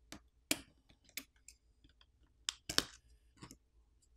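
A handful of small, sharp plastic clicks and taps at irregular intervals, loudest near three seconds in: a plastic pry tool working over an Asus Zenfone 7 Pro's board, popping off flex-cable connectors.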